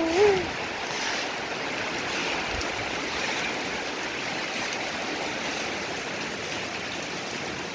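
Heavy rain pouring down: a steady, even rushing hiss. A brief voice sound at the very start.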